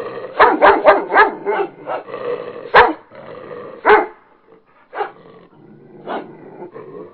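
A dog barking in play: a quick run of four barks in the first second and a half, then single barks about a second apart, fainter toward the end.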